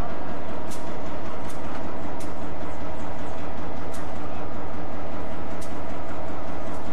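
EMD SD38 diesel-electric locomotive's engine running steadily at close range while the locomotive stands, with a few brief high-pitched ticks over it.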